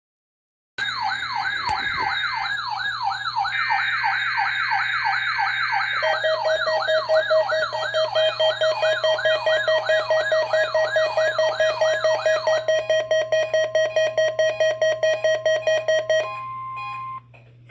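Electronic siren and alarm tones: fast rising-and-falling wails layered over steady tones, changing about eight seconds in to rapid even pulsing beeps, cutting off about sixteen seconds in and followed by a short steady tone.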